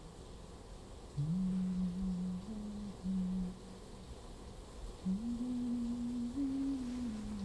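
A man humming a slow, low tune with his mouth closed, stepping between a few notes. One phrase starts just over a second in, and a second, longer phrase starts about five seconds in.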